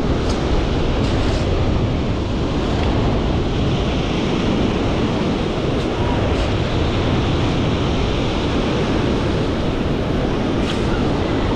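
Wind buffeting the microphone over the steady wash of surf at the water's edge, with a few faint clicks.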